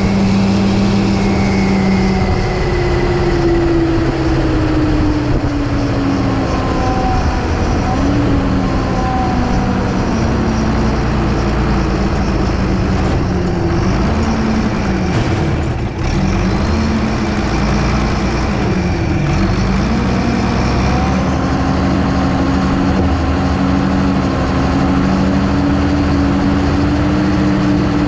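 Ursus 1224 Turbo tractor's six-cylinder turbocharged diesel engine running under way, heard from the cab. Engine speed falls over the first several seconds, wavers and dips around the middle, then holds steady at a slightly higher speed for the last few seconds.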